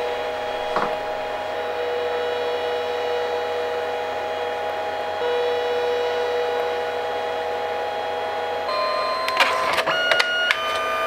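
Compact dye-sublimation photo printer running a print, its feed motor whining steadily with a pitch that shifts about halfway through as the paper moves for another colour pass. Near the end the whine changes and a run of sharp clicks and short stepped tones follows as the finished print is pushed out, then the motor winds down.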